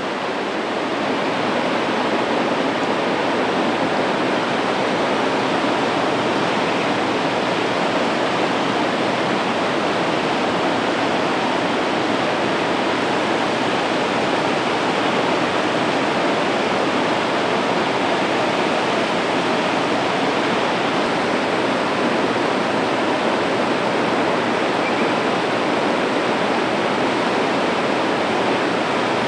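A large river waterfall, Sorachi Great Falls, thundering steadily: a dense, even rush of falling water with no breaks.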